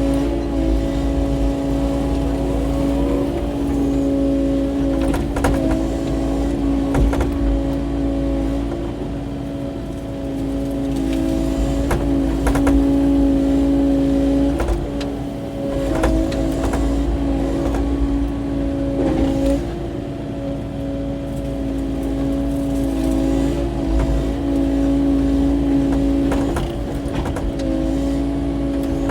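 Kubota KX080-4 excavator's diesel engine and hydraulics running steadily, the pitch stepping up and down as the machine takes and sheds load, with scattered knocks and cracks as brush is cleared off rocky ground.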